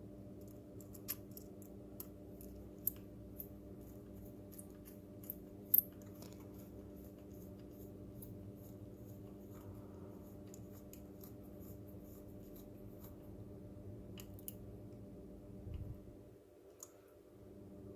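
A small screwdriver drives a tiny M2 screw into the robot's plastic body shell, making faint, irregular clicks and ticks. A steady low hum sounds underneath.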